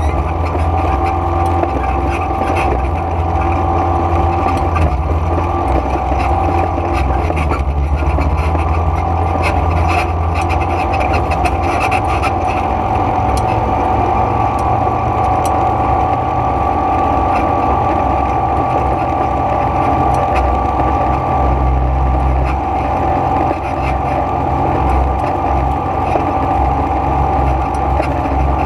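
ATV (quad bike) engine running steadily at riding speed, a constant drone with a heavy low rumble beneath it.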